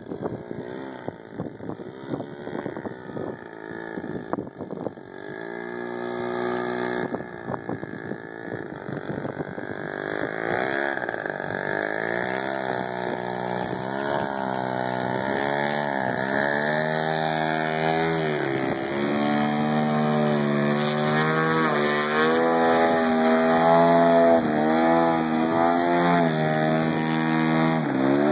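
The 150cc two-stroke gasoline engine of a 42% scale Yak RC aerobatic plane runs, its pitch rising and falling with repeated throttle blips as the plane hangs nose-high in a tail-drag. It grows steadily louder as the plane comes closer.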